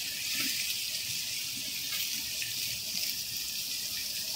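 Cauliflower, carrots and green beans sizzling in oil in a kadai: a steady hiss with a few faint crackles.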